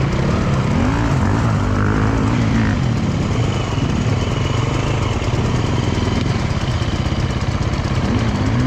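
Dirt bike engines running and revving up and down in short throttle blips as enduro motorcycles pick their way through a rocky creek bed, over the steady rush of the flowing stream.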